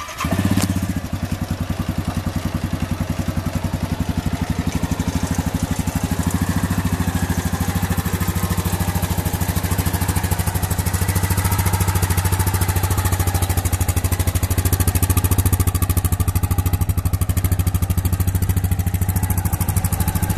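Yamaha Grizzly 550 ATV's single-cylinder four-stroke engine comes in suddenly just after the start, then runs at a steady idle with an even, fast firing pulse and no revving.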